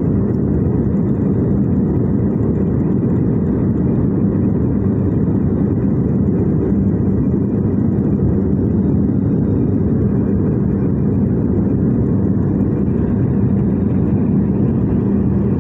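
Cabin noise of a jet airliner in flight heard at a window seat: a steady low rumble of engine and airflow with a constant low hum.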